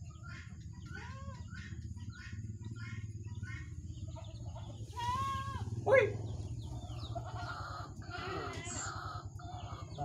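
Young birds cheeping in a regular run of short peeps, about two a second, then a louder call falling in pitch about six seconds in, followed by a jumble of overlapping calls.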